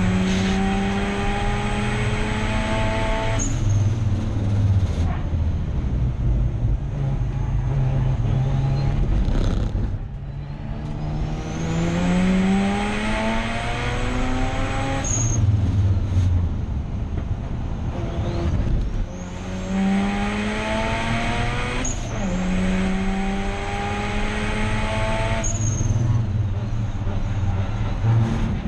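Turbocharged 13B rotary engine of a Mazda RX8 race car accelerating hard, its pitch climbing steadily and then dropping back at each upshift every three to six seconds. A high whine rises with the revs. About ten seconds in the revs fall away and the sound dips, then builds again through the gears.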